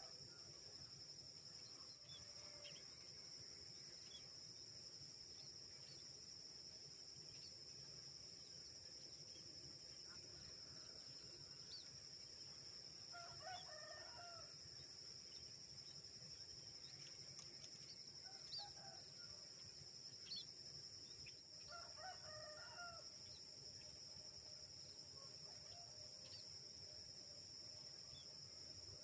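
A rooster crowing faintly about three times midway, over a steady high-pitched drone of crickets.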